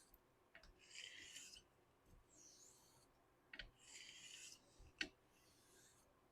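Faint strokes of a straight razor's blade sliding across a wet whetstone, four of them, each a short hiss, with a sharp click between strokes as the razor is turned over on its spine against the stone.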